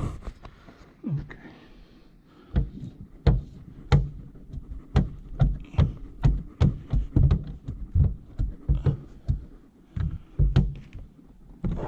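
A run of short, irregular thumps and knocks, about one or two a second, as a hand squeegee tool is worked over window tint film on a car's rear glass to push out the water.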